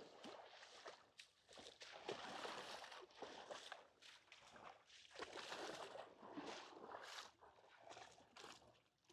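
Faint small waves lapping and washing on a beach, in soft swells every second or two.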